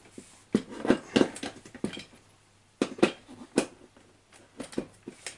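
Scattered knocks and clinks of metal parts and tools being handled on a large RC monster truck's chassis during assembly. They come in short clusters about a second in, around three seconds in and near the end.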